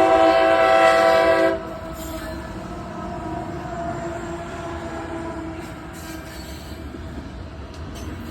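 Locomotive air horn sounding a chord that cuts off about a second and a half in, followed by the steady rumble of the train rolling past on the rails.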